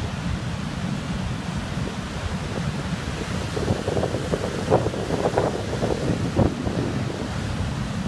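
Storm wind buffeting the microphone over the steady rush of heavy surf breaking on the shore, with stronger, irregular gusts hitting the microphone from about halfway through.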